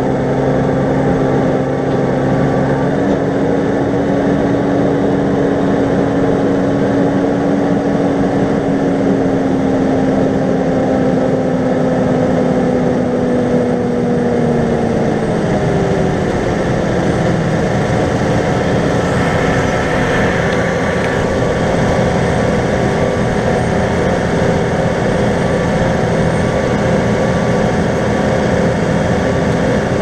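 New Holland T7.245 tractor's six-cylinder diesel engine running steadily under load while pulling a five-furrow plough. Its note falls a little about halfway through, then holds steady.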